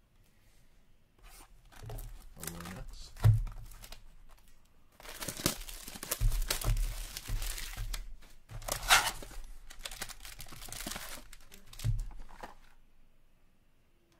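A 2022-23 Upper Deck Allure hockey card box being torn open by hand, its wrapping and cardboard tearing, then the wrapped packs crinkling as they are pulled out and stacked, with a few dull thumps. The sharpest tears come about three seconds in and about nine seconds in.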